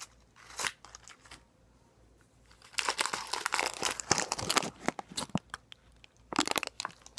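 Dum Dums lollipop wrapper crinkling as it is handled close to the microphone, a dense crackle for about two and a half seconds from a few seconds in, then a shorter burst near the end.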